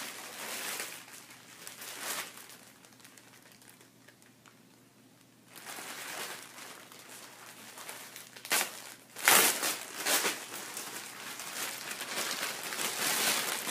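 Clear plastic packaging bag crinkling as hands handle and pull it open. It comes in bursts, with a quieter lull in the middle and the loudest crinkling about nine seconds in.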